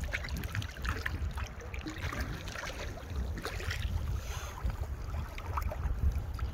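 Shallow seawater sloshing and splashing as it is waded through, in many small irregular splashes, over a steady low rumble of wind on the microphone.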